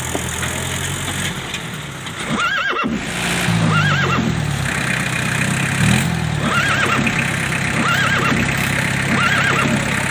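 Kubota L3202 tractor's diesel engine running while being driven, its revs dropping and rising a few seconds in. Over it, a short high squeal that rises and falls comes five times, about every second and a half.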